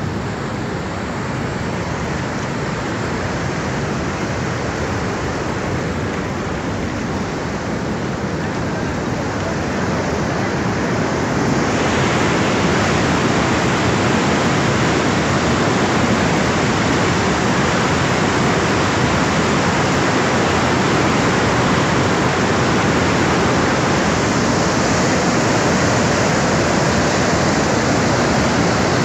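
Fast-flowing floodwater rushing in a steady, loud wash of noise that grows louder and brighter about twelve seconds in.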